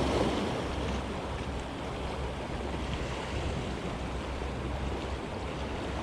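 Sea surf washing against a rocky shore in a steady rush, with wind buffeting the microphone.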